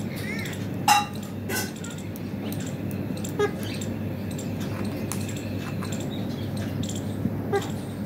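Ringneck parakeet giving a few short, sharp calls spread through, the loudest about a second in, over a steady low hum.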